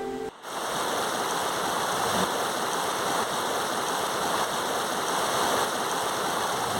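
Steady rush of flowing water, an even hiss that comes in after a brief dip about half a second in.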